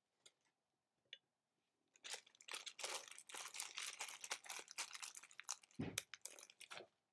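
Close, dense crunching and crinkling from hands working something just below the microphone, starting about two seconds in and running for about five seconds, with a dull bump near the end.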